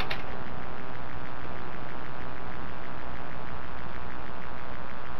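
Steady hiss and hum of a security camera's microphone recording an empty night scene, with one short high chirp right at the start.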